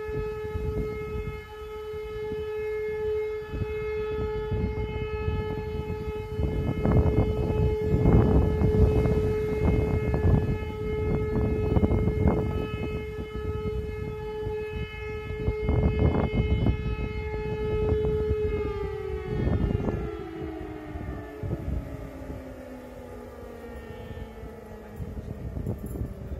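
Civil defence siren sounding the 'Warnung' signal, a steady three-minute tone, which ends about 18 seconds in as the siren winds down and its pitch falls away. Gusts of wind buffet the microphone, loudest about 8 and 16 seconds in.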